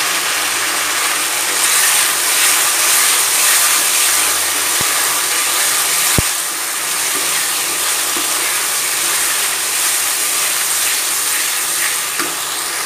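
Pav bhaji sizzling in hot oil and butter in a kadai as it is stirred with a wooden spatula, with two brief sharp clicks about five and six seconds in.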